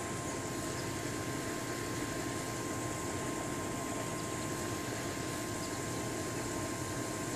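Steady, even background noise like a hum or hiss, with a thin steady whine in it and no separate events.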